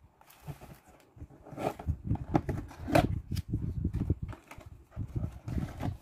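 Cardboard product boxes handled by hand on a hard floor: irregular knocks, taps and rustling as a box is picked up and its flaps opened, the sharpest tap about three seconds in.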